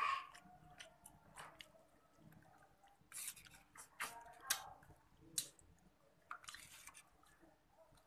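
Wet mouth sounds of a person eating crab meat by hand: chewing and lip-smacking in short scattered bursts with small clicks.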